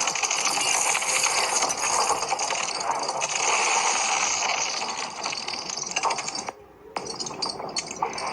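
Dense crackling hiss, a thick stream of fine crackles and ticks that briefly drops out about six and a half seconds in.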